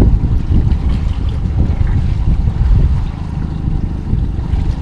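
Wind buffeting the microphone on a trolling boat under way: a loud, uneven low rumble.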